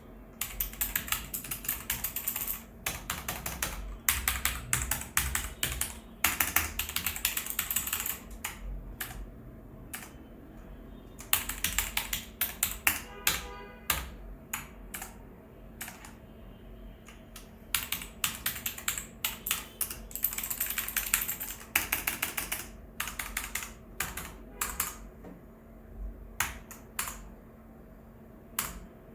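Rapoo V500 Pro mechanical keyboard being typed on: quick runs of key clicks lasting a second or two, broken by short pauses and single key presses.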